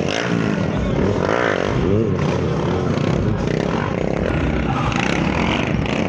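Several motorcycle engines revving up and down as riders pull wheelies past, with the pitch rising and falling repeatedly.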